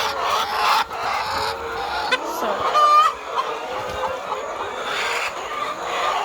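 A flock of laying hens clucking and calling together in their pen, with one louder call about three seconds in.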